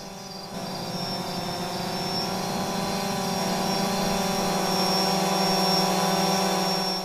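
A quadcopter drone's rotors humming, a steady buzzing drone that grows steadily louder.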